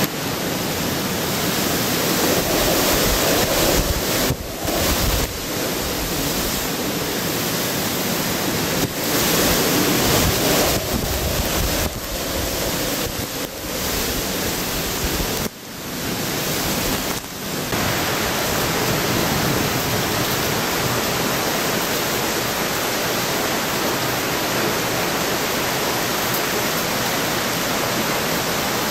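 Torrent of typhoon floodwater rushing and cascading over a concrete drop in a drainage channel, mixed with wind gusting on the microphone. The rush dips briefly a few times early on, then settles into a steadier roar about two-thirds of the way through.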